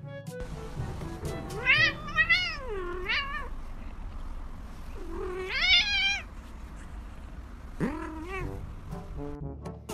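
A grey cat meowing in long, drawn-out calls that rise and fall in pitch: a string of calls about two seconds in, one long call around the middle, and a shorter one near the end.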